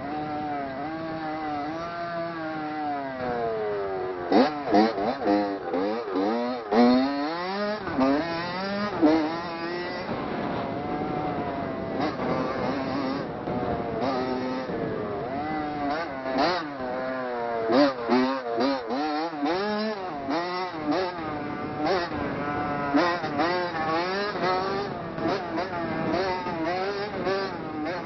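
Onboard sound of a motocross dirt bike engine being ridden, the revs climbing and dropping over and over as the throttle is worked through the track, broken by sharp knocks.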